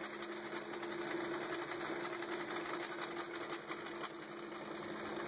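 Steady hum of a running motor: an even drone with two constant low tones that does not change.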